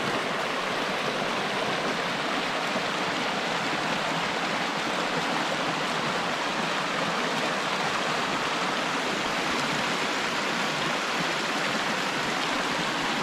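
Creek water pouring over a low rock ledge and through small rapids, a steady, unchanging rush.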